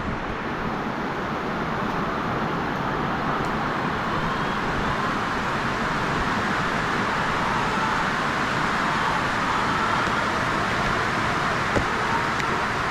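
Heavy rain drumming steadily on a barn's metal roof, a loud, even hiss-like rush, with a single small knock near the end.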